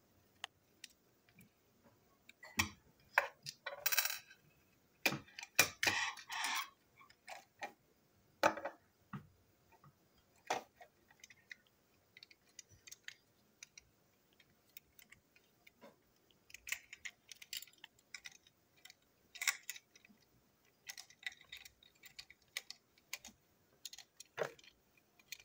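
Small plastic parts and tiny metal screws of a toy model steam locomotive clicking, rattling and scraping as it is taken apart by hand with a small screwdriver. Scattered irregular clicks, with a couple of longer scraping noises about 4 and 6 seconds in.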